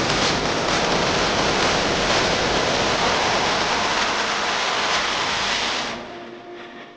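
Steady, dense hiss with a faint crackle, fading away about six seconds in.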